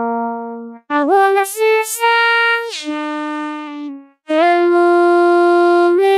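Electronic synthesizer music from a demo intro: bright buzzy held notes with short pitch slides between them, in phrases that break off briefly twice.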